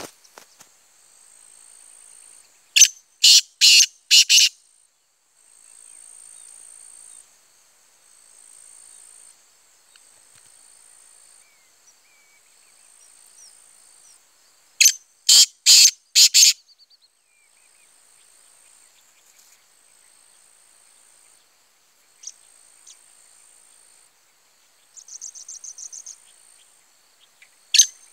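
Black francolin calling: a harsh, grating call of four quick notes, given about three seconds in, again about twelve seconds later, and starting once more at the very end. Between the calls, a faint high insect buzz.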